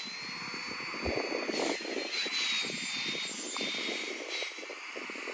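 Small electric air pump running with a steady high whine while it inflates a sleeping pad, its pitch sagging slightly as the pad fills, with fabric rustling from handling the pad.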